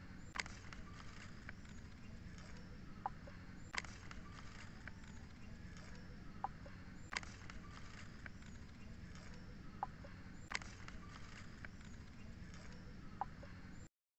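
Faint steady background hum with a short pip and a sharp click that repeat about every three and a half seconds, like a looped background track. It cuts off abruptly just before the end.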